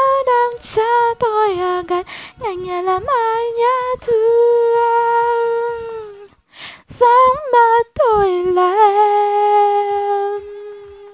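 A woman humming a slow melody without words or accompaniment, close to a hand-held microphone, with two long held notes, the second lower, that trail off near the end.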